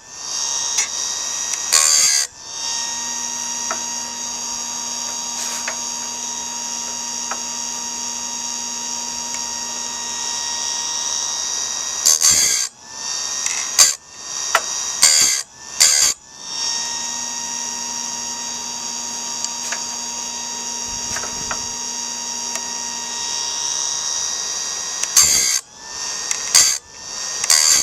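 Electric chainsaw-sharpener grinder, rebuilt as a bandsaw mill blade sharpener, running with a steady whine. About eight short, loud grinding bursts come in two clusters as the wheel is brought down onto the blade teeth.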